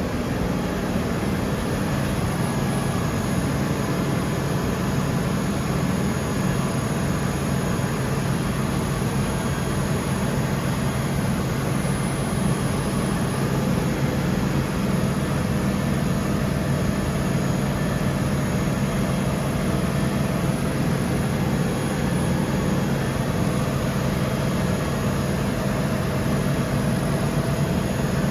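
Micron VCP 710 vertical machining centre running: a steady mechanical hum with faint steady high tones above it.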